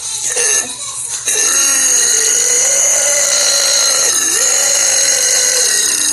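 A young woman's long, loud burp, starting about a second in and held steadily for several seconds, with a brief dip in pitch about halfway through.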